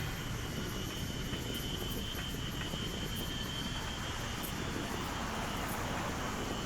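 Steady street traffic noise with a low rumble of wind on the microphone, and a thin high whine running through most of it.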